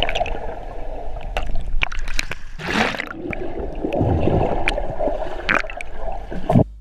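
Underwater sound in a swimming pool: a muffled rushing and bubbling of water dotted with sharp clicks, with a louder rush of bubbles about three seconds in, as a diver swims underwater after entering from the diving tower.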